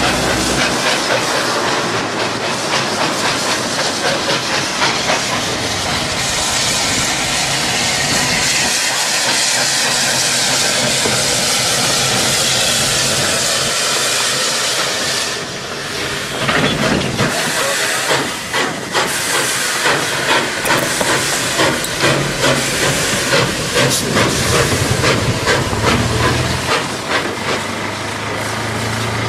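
Porter steam locomotive hissing steam steadily; about halfway through the hiss eases and a regular beat of exhaust chuffs, about two a second, takes over as it pulls.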